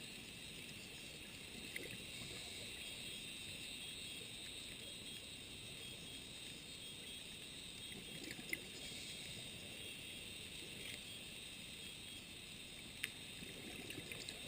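Underwater ambience picked up through a dive camera: a faint steady hiss with a few sharp clicks, the loudest about halfway and near the end, and a low bubbling that swells a couple of times.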